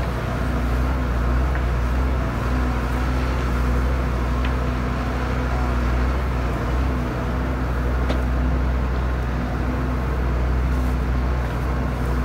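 Cloverdale 500T vertical feed mixer running steadily under tractor drive, its auger churning a frozen, high-moisture corn stalk bale that has not yet broken apart. There is a constant low drone with a couple of faint clicks.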